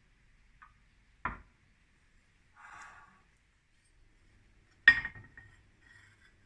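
Kitchen items being handled and set down: two sharp knocks, the second louder with a brief ringing tail, and a short rustle between them.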